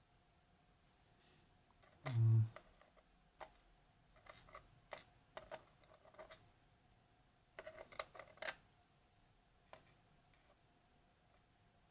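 Small metal lock parts being handled: scattered light clicks and taps of pins and tools on a hard surface while a Kaba Gemini S dimple lock is taken apart. A short, low thump about two seconds in is the loudest sound.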